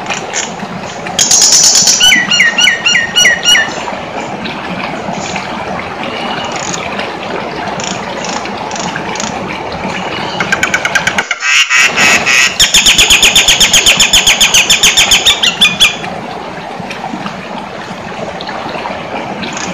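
Jalak nias, a songbird of the starling family, calling loudly in two bouts. About a second in it gives a shrill call and then a run of five falling whistles; about ten seconds in it gives a rapid chatter of repeated notes lasting about five seconds. A steady background noise runs underneath.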